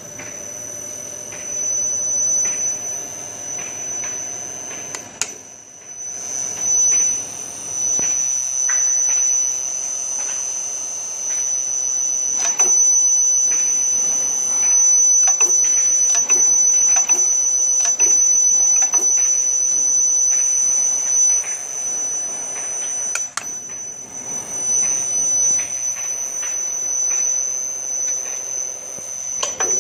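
Paldo PTD-32 drill-tapping machine running, with a steady high whine and a lower steady hum throughout, and irregular clicks and knocks over it as the level swells and dips, typical of the machine working through metal.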